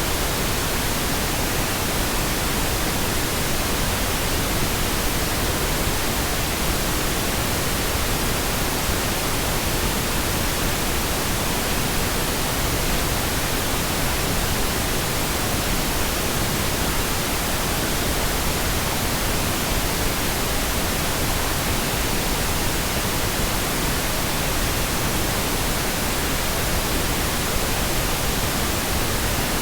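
Steady synthetic pink noise: an even, unbroken hiss spread across all pitches, with no change in level.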